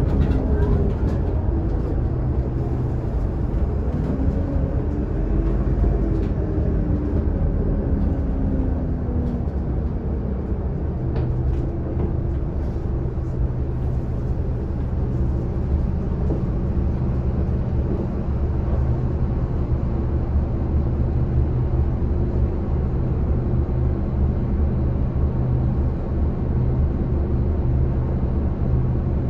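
Scania K280UD double-decker bus's five-cylinder diesel engine and driveline, heard from inside the lower deck. For roughly the first ten seconds a whine rises and falls in pitch as the bus changes speed, then the engine runs steadily at low revs in slow traffic.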